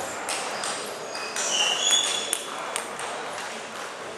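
Table tennis ball ticking off bats and the table during a serve and rally, a few sharp clicks with a ring in the hall.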